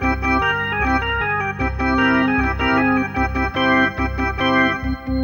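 Background music on an organ-like keyboard: held chords that change about every half second over a stepping bass line, with one note sustained throughout.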